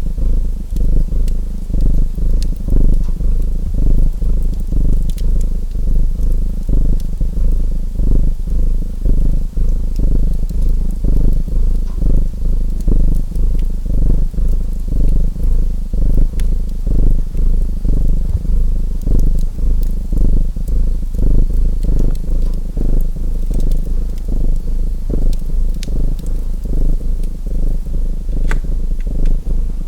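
A domestic cat purring close up, a low rumbling pulse that swells and fades about once a second with each breath in and out. Wood fire crackling underneath, with scattered small pops and one sharper pop near the end.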